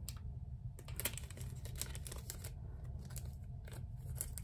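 Faint small clicks and crinkles of fingernails picking and peeling washi tape off a clear plastic photo card sleeve, over a low steady hum.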